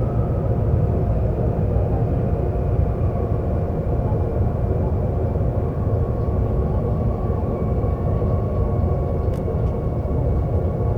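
Seoul subway train running, heard from inside the car: a steady low rumble with a faint steady whine above it. There is a short click about nine seconds in.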